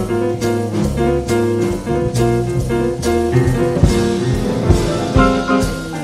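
Live jazz combo playing: grand piano with a drum kit keeping time and a deep bass line underneath.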